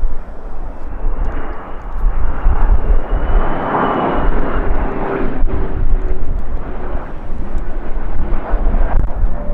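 Jet airliner passing close by, its engine noise swelling to a peak about four seconds in and then easing, with a faint high whine above it. Gusty wind rumbles on the microphone throughout.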